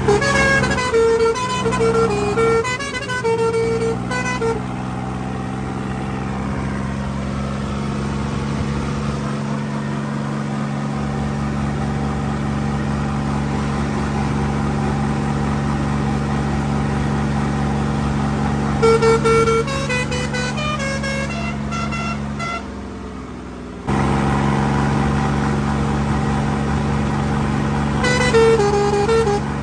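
Sonalika tractor's diesel engine running steadily on the road, with its compressor-fed air horns sounding three times: short runs of changing notes at the start, around two thirds of the way in, and again near the end. The engine note drops briefly a little after the second run of horn notes.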